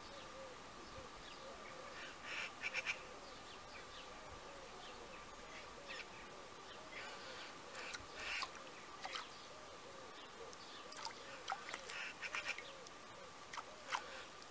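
Female blackbird bathing in a shallow stone basin, throwing up splashes with quick wing flicks in short bursts: a cluster a couple of seconds in, another about eight seconds in, and a busier run near the end. A faint steady tone runs underneath.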